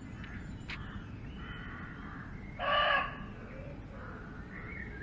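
A muntjac deer barking in woodland: one short, harsh bark about two and a half seconds in that sounds like a dog barking.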